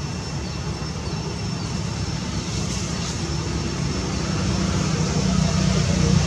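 A distant engine's steady low drone, growing louder over the last couple of seconds.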